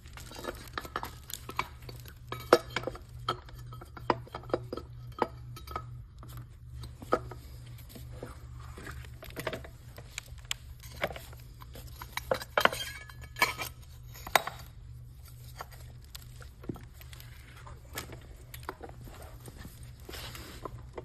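Small metal parts clinking and tapping at irregular intervals as steel bolts are handled and coated with anti-seize. A steady low hum runs underneath.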